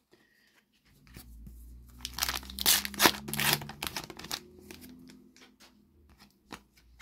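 A Panini FIFA 365 card sachet being torn open, its wrapper crinkling for a few seconds, loudest in the middle. Then a few light clicks as the cards are slid out and handled.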